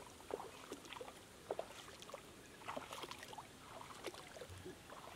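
Faint, irregular small splashes and drips of water as a wet fishing net is handled in shallow paddy water and small fish are picked out over a plastic basin.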